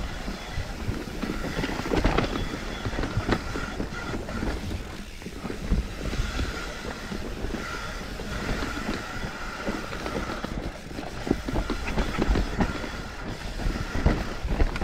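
Mountain bike descending a rough dirt forest trail: the bike rattling and knocking over roots and bumps, tyres rolling over dirt and leaves, with a low rumble of wind on the microphone.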